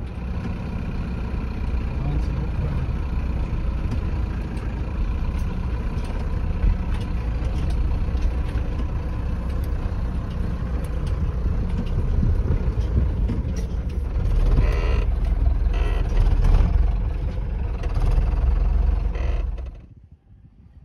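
Mercedes Vario truck's diesel engine running with a steady low rumble heard from inside the cab as it creeps over bumpy, holey grass, with many small rattles and knocks; it gets louder in the second half and cuts off suddenly near the end.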